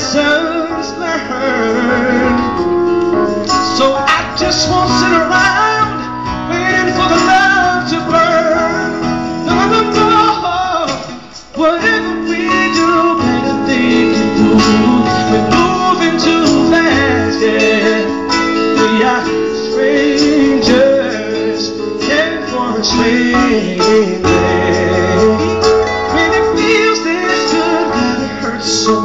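Live pop song: a male singer's amplified vocal over acoustic guitar and keyboard, heard from the audience, with a short break in the music about eleven seconds in.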